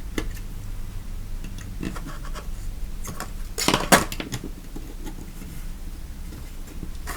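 Scattered clicks and scrapes of a tool prying the front circuit board of a Sonoff T1 smart light switch up out of its plastic housing, with a louder cluster of clicks about halfway through.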